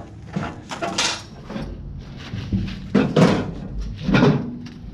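Metal parts rattling and clanking in a string of knocks as a bar is pushed and wiggled to work it loose; the loudest clanks come about three and four seconds in.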